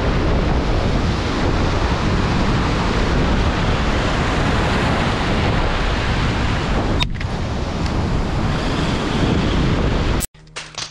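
Heavy surf breaking and washing over shoreline rocks, with strong wind buffeting the microphone, as a steady dense roar. A short click comes about seven seconds in, and the roar cuts off suddenly near the end.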